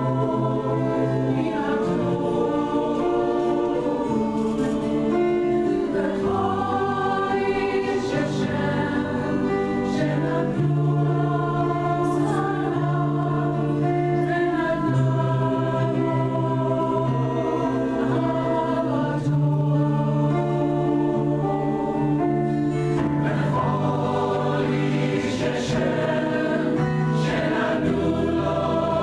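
Mixed community choir, men's and women's voices together, singing a Hebrew song in sustained, slowly changing chords.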